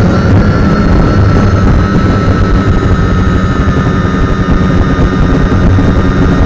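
Quadcopter's electric motors and propellers heard from its onboard action camera: a steady whine over heavy rumbling prop wash and wind buffeting, the whine dipping slightly in pitch near the end.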